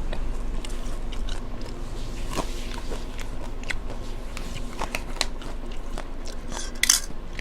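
A person eating close to the microphone: chewing with scattered small crunches and crackles, and one louder crunch near the end.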